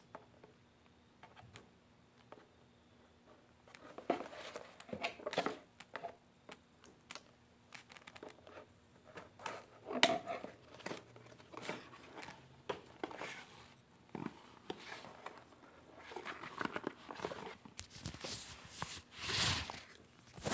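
The cardboard box and packaging of a VEX Cortex microcontroller being opened and handled: irregular rustling and sharp clicks, starting about four seconds in.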